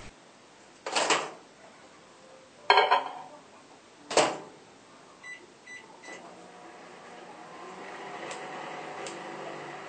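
Over-the-range microwave oven in use: three loud clunks and clatters as the door is opened, something is put inside and the door is shut, then three short keypad beeps, and the oven starts running with a steady hum that builds up over a couple of seconds.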